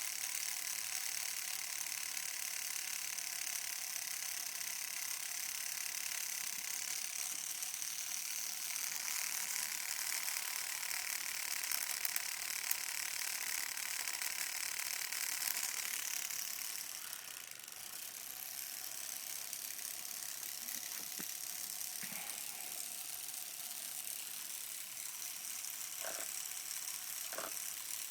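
Homemade tattoo machine, built from a mechanical pencil and a guitar-string needle, running with a steady mechanical buzz while tattooing; it eases off briefly about two-thirds of the way through and then carries on.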